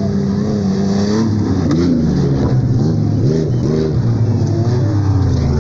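Off-road race vehicles' engines revving hard on a dirt track. The engine pitch holds for about a second, then climbs and drops again and again, as in rapid throttle changes and gear shifts.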